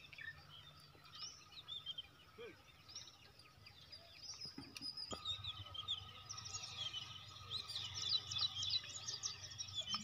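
Faint outdoor ambience of small birds chirping and twittering, the calls growing busier in the second half, over a low steady rumble that comes in about halfway through.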